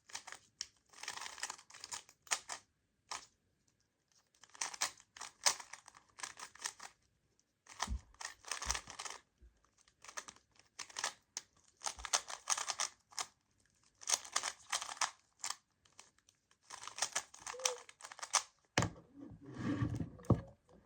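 Plastic Rubik's cube being turned fast by hand during a speedsolve: bursts of rapid clicking and clacking layer turns, each about a second long, with short pauses between them, and a few dull knocks from handling the cube.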